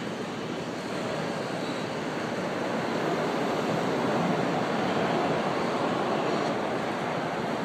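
Empty double-stack container well cars rolling past on the rails: a steady rush of wheel-on-rail noise that grows a little louder a few seconds in.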